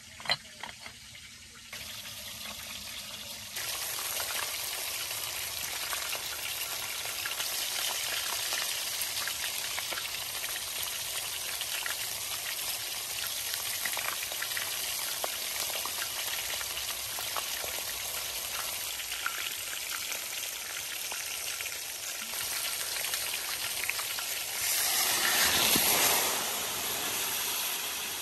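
Sheep brisket sizzling as it cooks: a steady frying hiss with many small pops, swelling louder for a couple of seconds near the end.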